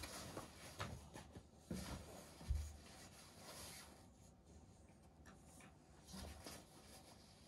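Faint scratching and rustling as kittens scramble over a fluffy rug and paw at a fabric pop-up play tunnel, with a soft thump about two and a half seconds in.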